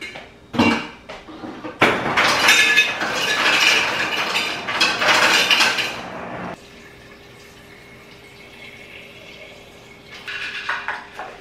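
Refrigerator door dispenser filling a tumbler with ice and water: a loud rush with clattering that starts about two seconds in and cuts off suddenly after about five seconds, followed by a few light clinks near the end.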